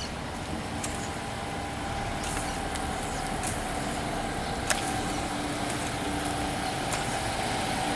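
Volkswagen hatchback's engine running as the car drives slowly up and pulls in, its steady hum growing gradually louder as it approaches. A single sharp click a little past the middle.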